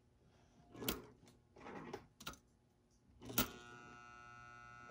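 Prewar Lionel Scout toy steam locomotive under test on track power: a few sharp clicks, then a louder click about three and a half seconds in, after which a steady electrical buzz from the powered engine runs on. The engine's E-unit reversing unit is cycling.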